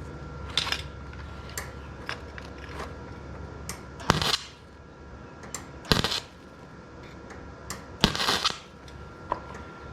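Electric welder laying short welds, a handful of brief crackling bursts with the longest about four and eight seconds in, filling the last hole in a repaired door latch striker plate.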